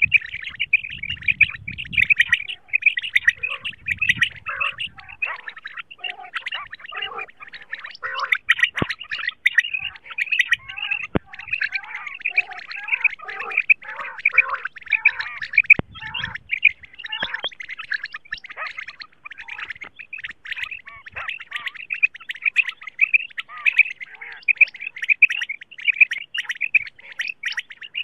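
Female common quail calls played as a hunting lure: many short chirping calls overlapping without a break, with a few sharp clicks.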